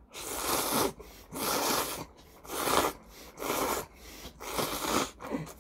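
A man slurping ramen noodles in loud, airy sucks, about one a second.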